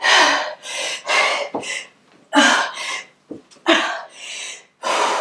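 A woman breathing hard and fast from the exertion of fast bodyweight exercise: short, forceful breaths in and out, nearly two a second, often in quick pairs. She is out of breath.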